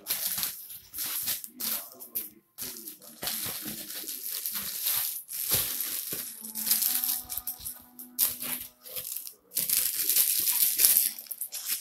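White foam packing sheets and clear plastic wrap rustling and crinkling as they are handled and peeled back, in irregular spells with short pauses.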